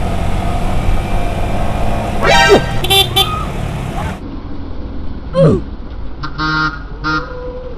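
Motorcycle engine and road noise while riding, with short pitched blasts partway through. After a sudden cut come a falling pitched sweep and two short vehicle-horn toots near the end.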